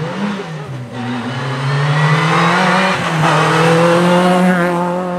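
Renault Clio rally car accelerating hard past on full throttle. The engine note climbs, drops briefly about three seconds in at an upshift, then climbs again, and is loudest in the second half as the car goes by.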